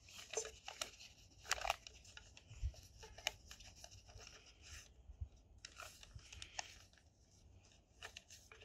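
Folded paper slips rustling and crinkling against a plastic bowl as a border collie noses through them, in faint, irregular rustles and small clicks that pause for about a second near the end.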